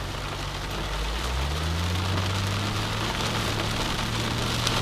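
Heavy rain pattering on a car, heard from inside the cabin, with a Ford Mustang's engine and Flowmaster exhaust rising in pitch about a second in as the car speeds up, then holding steady.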